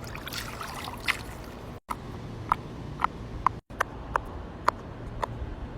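Fidget toys being handled: a series of short, pitched pops, roughly two a second, after a brief crackle at the start.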